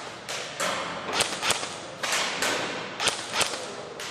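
Double Eagle M89 UMP airsoft electric gun firing a string of single shots, several a second, each with a short echoing tail. Sharper cracks among them are BBs striking the target.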